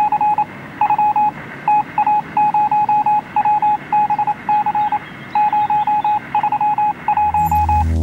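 Electronic beeping sound effect: a steady-pitched beep pulsed rapidly in short runs with brief gaps, over a faint low rumble. About seven seconds in, a deep low hum of electronic music comes in.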